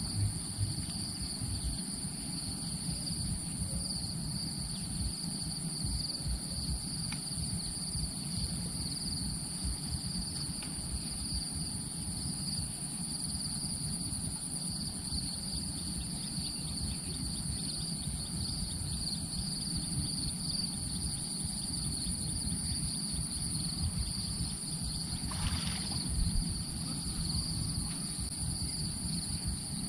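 A steady chorus of insects shrilling in two high, unbroken bands, over a fluctuating low rumble of wind on the microphone. A short burst of noise comes about 25 seconds in.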